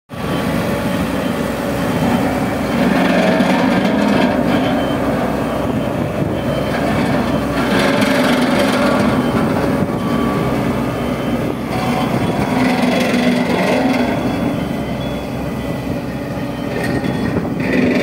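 Ammann single-drum soil compactor's diesel engine running steadily as the roller drives over loose dirt.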